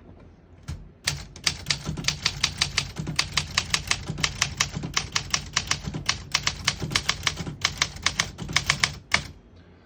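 1964 Olympia SM9 manual portable typewriter being typed on: a quick, even run of key strikes, about four or five a second, that starts about a second in and stops near the end.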